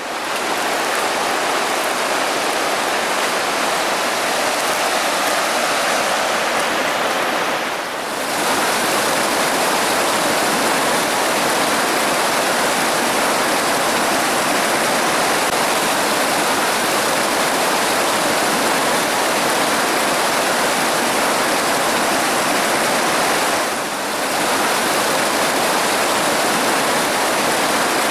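Fast glacier-fed river rushing over rocks in a steady, even rush of water, dipping briefly twice.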